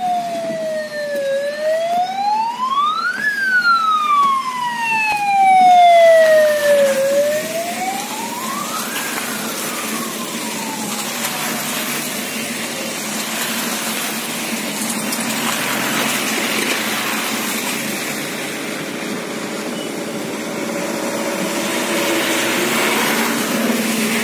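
Vehicle siren wailing, sweeping slowly up and down a few times and fading out about ten seconds in. A line of cars and SUVs then drives past with steady engine and tyre noise on the wet road.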